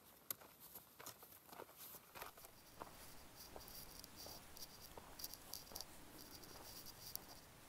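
Near silence, with faint clicking footsteps and trekking-pole taps on a dirt trail. A faint, high, pulsing chirp comes in about a third of the way through.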